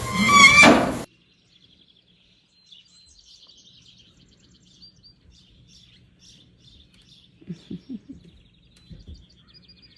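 A loud call with sliding pitch cuts off suddenly about a second in. Faint chirping of small birds follows, with a few low soft knocks about three-quarters of the way through.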